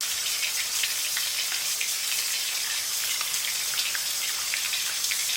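Steady crackling hiss dotted with many small ticks.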